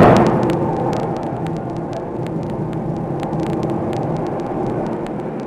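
A single heavy blow of a 5-ton hydraulic open-die forging hammer striking a red-hot billet right at the start, its ring dying away over about a second. After it comes a steady machine hum with faint scattered ticks.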